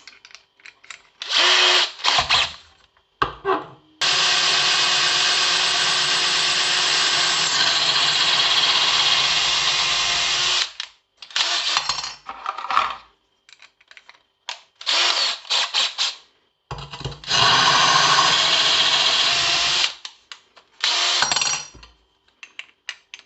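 Power drill running a drill bit, drilling in several short bursts and two longer runs of about six and three seconds.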